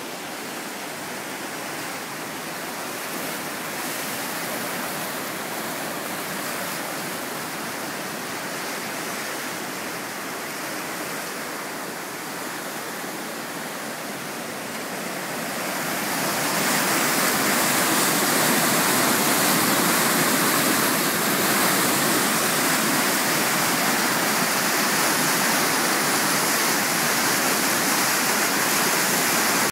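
The River Bonnet rushing over rocks and rapids in a fast, steady flow of white water, growing louder a little past halfway.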